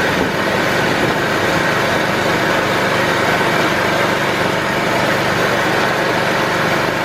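Argo off-road vehicle's engine running steadily as it drives over rough, bumpy ground.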